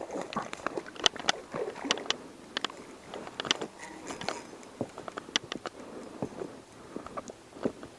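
Irregular clicks, taps and rustles of hands handling fishing gear close to the microphone.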